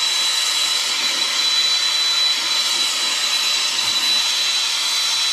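Gas torch flame hissing steadily as it heats a copper pipe for soldering, with a thin, steady high whistle above the hiss.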